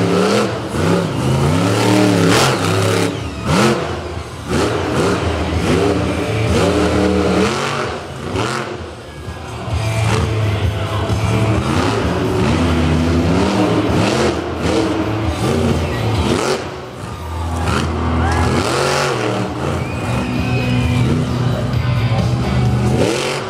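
Monster truck engine revving hard and repeatedly, its pitch rising and falling with each throttle stab.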